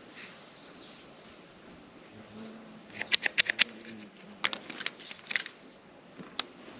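Sharp clicks and taps of handling while a cat is brushed with a slicker brush: a quick run of about five about three seconds in, then scattered clicks, and one more near the end.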